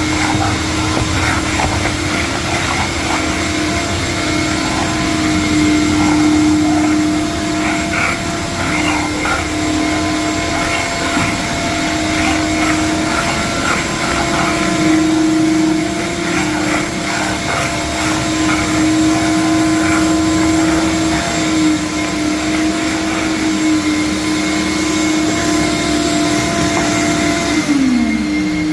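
Vacuum cleaner running steadily with a constant whine over a loud hiss, with scattered crackles in the first half. Near the end a second tone glides down in pitch.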